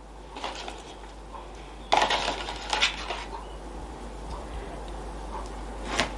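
Hands laying small raw perch onto a rye-dough crust: soft handling sounds, with a rustling clatter about two seconds in and a sharp click near the end.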